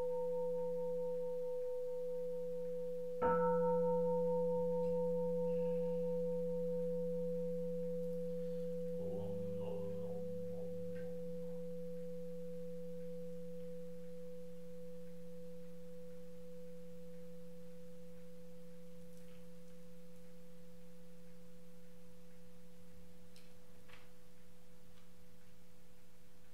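Buddhist temple bowl bell (kin) ringing with a sustained hum. It is struck once more about three seconds in and then dies away slowly. A brief faint sound comes around ten seconds in.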